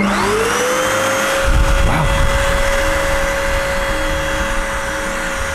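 Handheld UV mattress vacuum cleaner switched on. Its motor spins up with a rising whine over the first second, then runs steadily with a high whine and rushing air.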